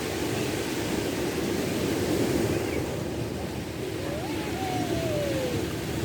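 Steady wind and surf noise at the shore, with one faint falling cry about four seconds in.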